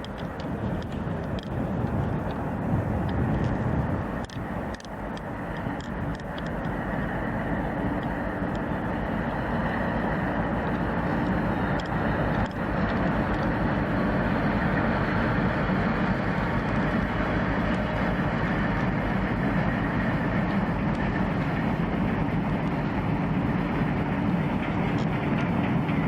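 A train running through the station: a steady rumble that builds over the first several seconds and then holds level.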